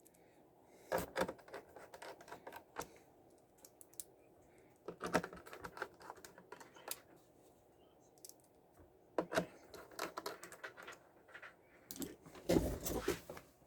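Keyboard typing in short, scattered bursts of clicks and taps, with pauses between them and the busiest burst near the end.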